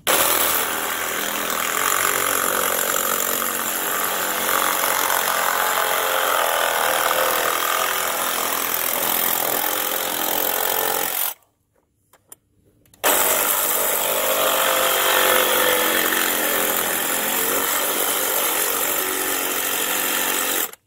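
Cordless reciprocating saw cutting through the hard plastic inlet of an air box, running steadily, stopping about eleven seconds in and starting again under two seconds later.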